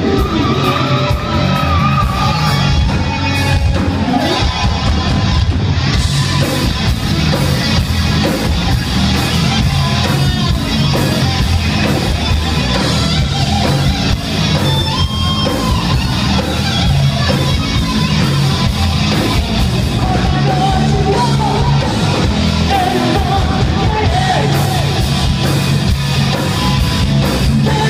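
Live hard rock band playing loud: distorted electric guitars, bass and a steady drum beat, with a male voice singing over them.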